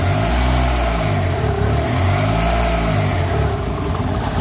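Turbocharged 4G63 6-bolt four-cylinder with 272-degree cams running on a cold start with no idle air control, its speed swinging up and down in slow arcs as the throttle is held open by hand to keep it from dying. The idle is choppy and running rich on cold enrichment.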